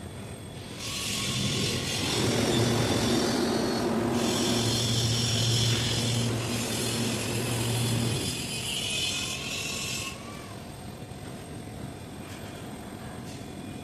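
Kaeser air compressor running for about nine seconds, with a loud hiss of air over a steady low motor hum. It cuts off suddenly near the ten-second mark.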